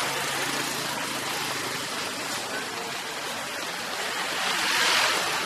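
Street traffic: motor scooters and cars running past in a steady hiss of road noise that swells near the end as one goes by.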